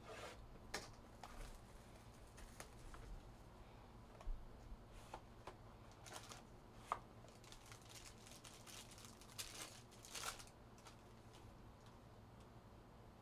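Faint handling of a trading-card hobby box and its cards: scattered cardboard taps and clicks with short rustles and crinkles as the box is opened and the cards taken out, a few louder rustles about ten seconds in.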